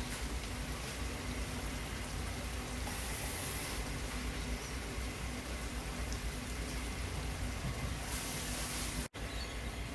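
Onion and spice masala with a little water sizzling and bubbling steadily in a kadai, with a brighter hiss twice. The sound cuts out abruptly for a moment near the end.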